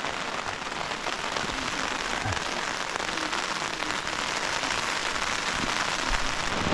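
Heavy rain lashing down on a tent's flysheet, heard from inside the tent, getting a little louder as it goes.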